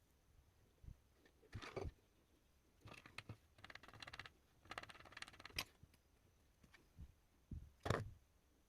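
Faint, scattered scrapes and clicks of small objects being handled, with a cluster of rustling scrapes in the middle and a sharper click near the end.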